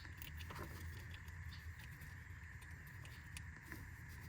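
Faint light ticks and scrapes of a new crankshaft position sensor being worked into its bore by hand, over a low steady hum.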